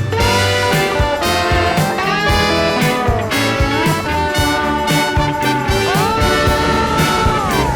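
Background music: an upbeat jazzy instrumental with brass lead notes that slide between pitches over a steady beat.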